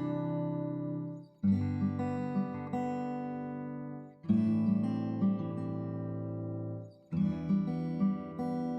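Background music: strummed guitar chords, each left to ring and fade almost to nothing before the next comes in, about every three seconds.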